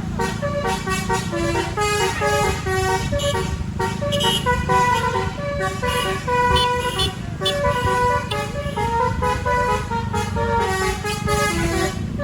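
A bus's musical telolet 'basuri' horn playing a running tune of short notes that step up and down a few times a second, over a low engine and traffic rumble.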